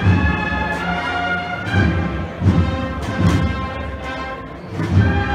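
Brass band playing a Holy Week procession march: held brass chords over low drum beats.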